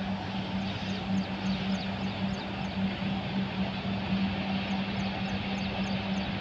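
An engine running steadily with a low, slightly pulsing hum, while a bird repeats short, high, falling chirps several times a second.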